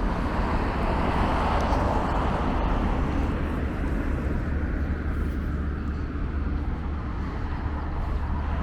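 Road traffic noise with a steady low rumble; a vehicle passes close by in the first three seconds, then the traffic settles back to a steady wash.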